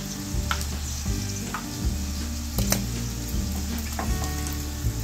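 Hot oil sizzling steadily as potato rolls fry in a pan, with a few light clicks of tongs against the rolls and pan.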